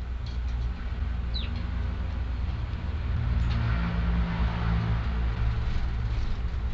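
Strong gusty wind buffeting the microphone, a steady low rumble that swells in a gust around the middle. A single short falling chirp from a sparrow about a second and a half in.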